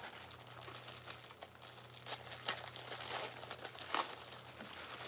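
Plastic packaging crinkling and rustling as it is handled, with irregular sharper crackles.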